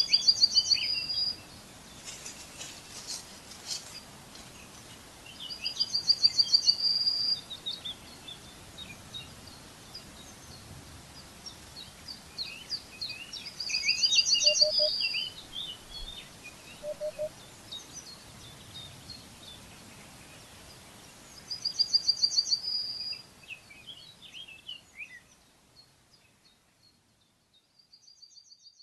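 Woodland birdsong: a songbird repeats a short, fast, high trill about every eight seconds, with scattered chirps from other birds in between. The sound fades away a couple of seconds before the end, leaving one faint last trill.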